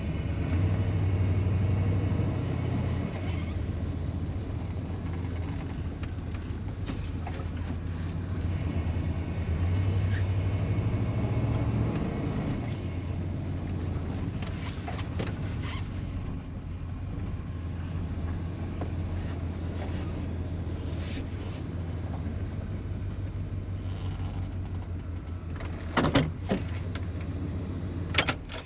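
A vehicle engine running steadily, its note swelling twice. A few sharp knocks near the end.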